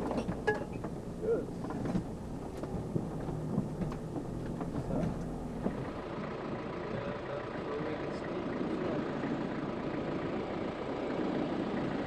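Vehicle jolting along a rough dirt track, heard from inside: scattered knocks, rattles and short squeaks from the body. After a sudden change about halfway, a steady engine hum that grows slowly louder as a Volkswagen Type 2 bay-window camper van drives closer.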